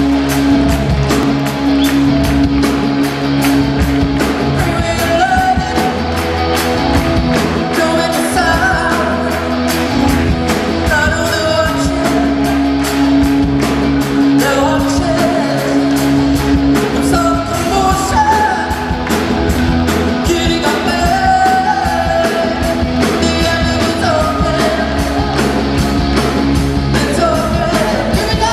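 Live pop music: a male lead vocalist sings a mash-up over a band with a steady drum beat and ticking hi-hat, the singing coming in about five seconds in.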